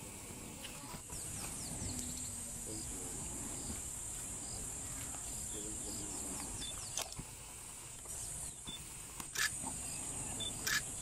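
Steady high-pitched insect drone of the bush, with a low rumble underneath and a few sharp clicks in the second half.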